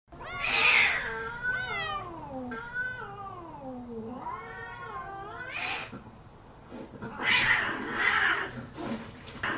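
A cat yowling in long, drawn-out meows. The first two slide down in pitch, the third rises, and then come a few shorter, harsher calls.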